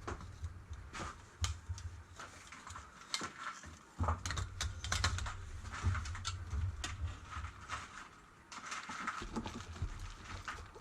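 Light, irregular clicks and taps of steel armour parts and rivets being handled and positioned during breastplate riveting work, with no heavy hammer blows.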